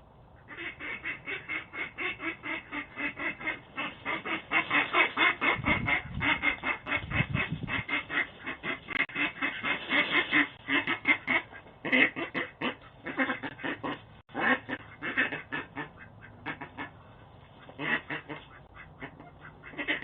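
Ducks quacking rapidly and insistently as they fight, several calls a second, heard through a doorbell camera's microphone. The calls ease off briefly about three-quarters of the way through, then pick up again.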